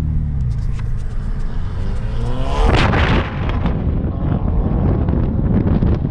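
Car engine accelerating hard, its pitch climbing steeply to a loud peak about three seconds in. A steady rushing noise, likely wind on the microphone, follows with the engine running underneath.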